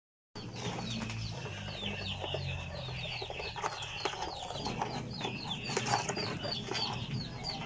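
Birds chirping, a rapid run of short high chirps, about three a second, over scattered light clicks and knocks of live mud crabs moving in a plastic basin of water and a low hum.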